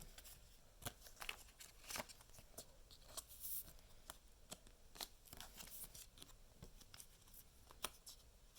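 Faint, scattered clicks and short rustles of Pokémon trading cards being handled and slid into plastic card sleeves.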